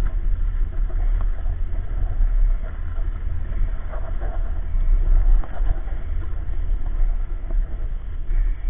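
Steady low rumble of a running stroller rolling fast over asphalt, picked up by a camera mounted on the stroller, with wind buffeting the microphone.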